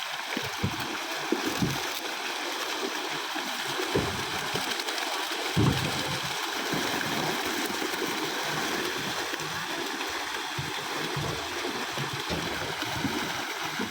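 Steady rush of flowing water with a few splashes, the loudest about a second and a half in and about five and a half seconds in.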